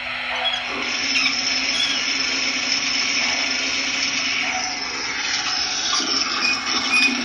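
Digital sound effect of water gushing, played by an MTH O scale operating water tower as it simulates filling a model steam locomotive's tender; a steady rushing with no break.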